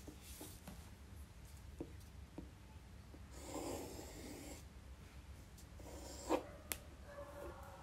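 Faint scratching of a compass's pencil tracing an arc on paper, with a few light clicks as the compass is handled, over a low steady hum.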